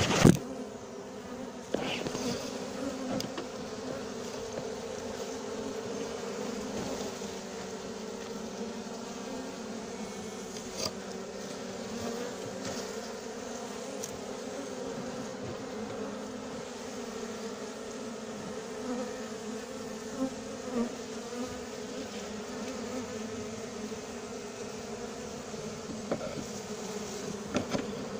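Honeybees buzzing steadily as a crowd, a continuous hum from a colony being worked during a comb transfer. A few short knocks sound over it.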